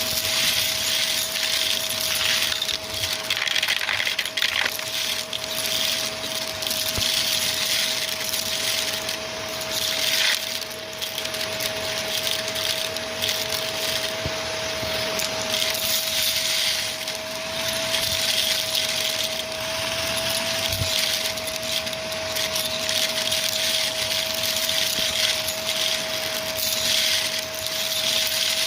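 Shark Rotator vacuum running with its crevice tool on the metal wand: a steady motor whine over rushing air that swells and dips as the tool moves. Scattered small clinks of debris being sucked up through the metal wand.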